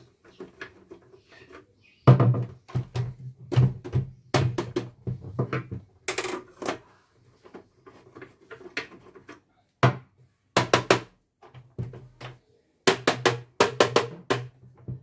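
Clusters of sharp clicks and knocks as an Elnoss embroidery machine's plastic-and-metal body is worked on with a screwdriver and handled on a wooden workbench, with a low thud under the louder knocks. The knocks come in several separate bursts, the last as the machine is tipped over onto its back.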